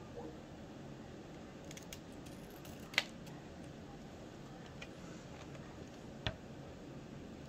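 Hand scissors snipping through paper, faint, with a few short sharp clicks, the loudest about three seconds in and another just after six seconds.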